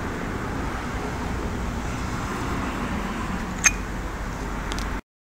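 Steady background rumble of traffic and room noise, with a single sharp click a little over halfway through as the steel bush driver pieces are handled. The sound cuts off abruptly to silence near the end.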